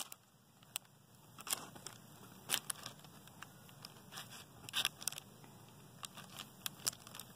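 A polka-dot gift baggie crinkling in scattered sharp crackles as hands work at untying its knotted tie.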